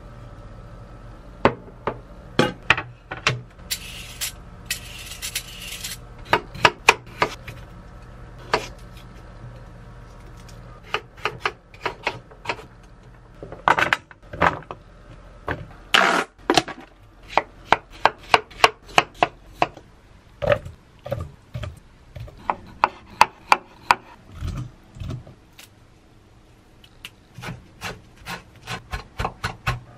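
Gift parcel being opened and handled by hand: a long run of sharp clicks, knocks and scraping, with a short tearing rustle about four seconds in and quick runs of ticking taps later on.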